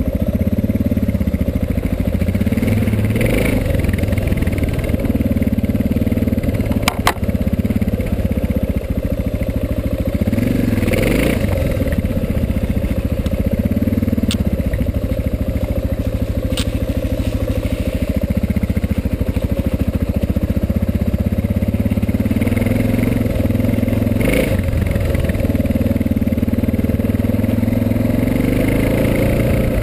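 Suzuki DR650's single-cylinder four-stroke engine running while being ridden, its pitch repeatedly rising and falling as the throttle is opened and closed. There is one sharp click about seven seconds in.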